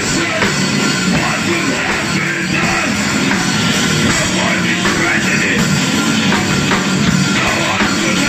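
Heavy metal band playing live: distorted electric guitars, bass guitar and drum kit, loud and dense without a break.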